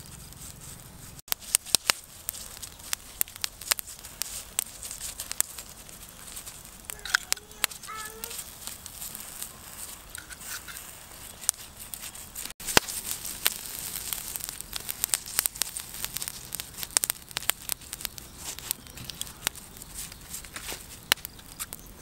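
Charcoal fire crackling under a duck roasting on a spit, with many sharp, irregular snaps and pops, and the rustle of a bamboo basting brush on the skin.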